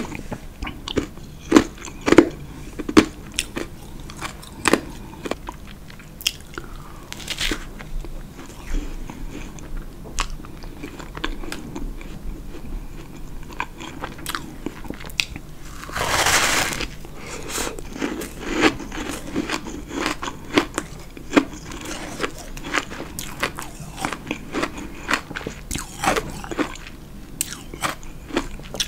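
Close-up biting and chewing of powdery ice: many sharp crunches, with one longer, louder crushing bite a little past halfway.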